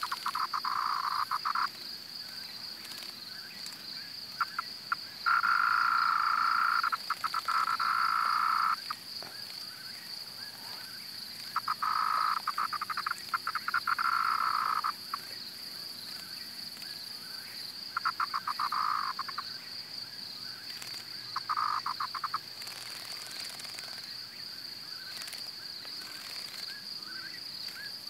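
A dying cicada buzzing weakly in five short bursts of one to three seconds, each opening with rapid stuttering clicks, with pauses of a few seconds between them. A steady high-pitched insect trill runs behind.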